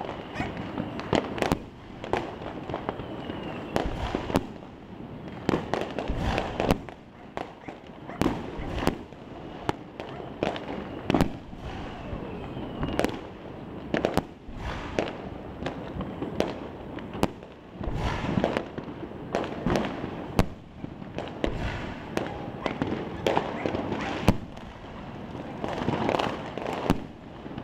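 Fireworks going off all over a city: a constant rattle of bangs and crackles from many rockets and shells bursting near and far, with frequent sharp, loud reports.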